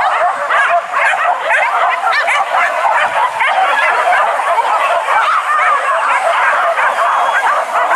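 A pack of hunting dogs yelping and baying without a break, many high yips overlapping at once.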